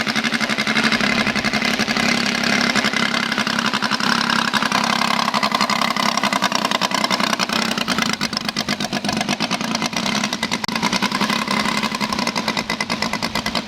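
Radio-controlled model aircraft engine running steadily, with fast, even firing pulses.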